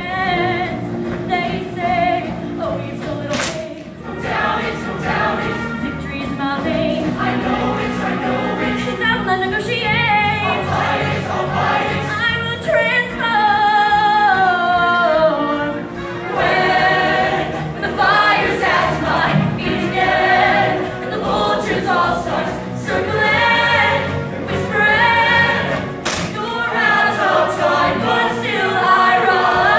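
Show choir singing a number, many voices together.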